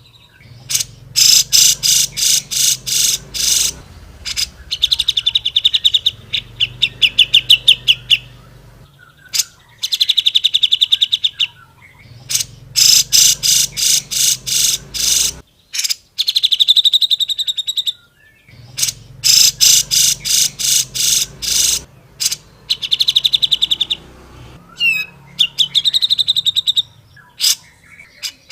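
Cucak jenggot (grey-cheeked bulbul) singing loudly in repeated bouts of rapid sharp notes and fast trills, each bout a few seconds long with short pauses between them.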